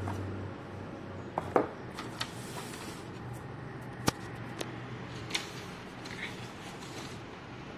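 Cardboard gift box being opened and its contents handled: a few sharp knocks and taps, the loudest about a second and a half in and again about four seconds in, and a brief rustle, over a steady low hum.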